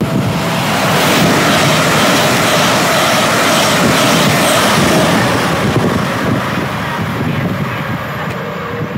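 Train passing at speed: a loud rush of wheel and air noise that swells about a second in and eases off over the last few seconds, with a faint steady whine.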